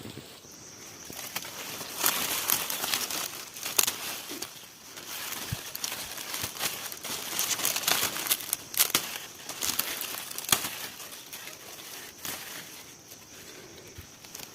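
Dry maize leaves and husks rustling and crackling, with sharp snaps here and there, as corn is harvested by hand. It is loudest over the middle part.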